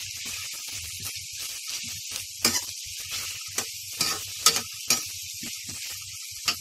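Sliced onions sizzling in hot oil in a steel kadai, being fried toward golden brown. A spatula stirs them and scrapes and clicks against the pan at irregular moments.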